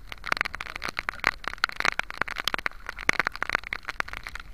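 Heavy storm rain falling on the sea: a dense, irregular crackle of drop taps.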